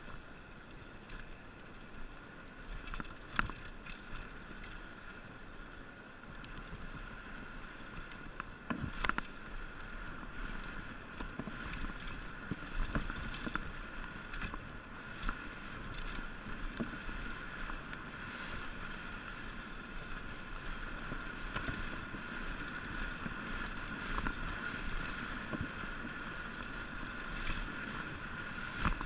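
Mountain bike ridden fast downhill on a leaf-covered dirt trail: a steady rolling noise from the tyres and moving air, broken by frequent sharp knocks and rattles as the bike hits roots and rocks. The sharpest knocks come about 3 and 9 seconds in.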